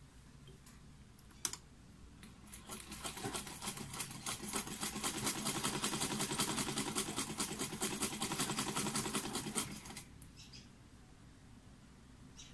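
Sewing machine stitching through layered cotton fabric: a single click about a second and a half in, then a rapid, even clatter of stitches that picks up speed, runs for about eight seconds and stops near the end.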